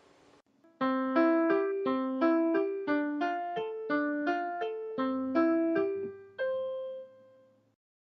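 A short piano tune of quick single notes, about three a second, starting about a second in and ending on a longer held note that fades away.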